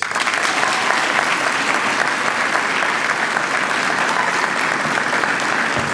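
Audience applauding in a hall, a steady dense clapping that starts abruptly right after a name is announced.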